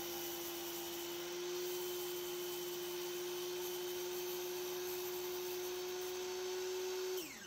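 Sliding compound miter saw running with a steady whine, its blade tilted to 45 degrees and locked at a set depth as it carves a cove into a wooden 2x6. Near the end the motor is switched off and the whine falls in pitch as the blade spins down.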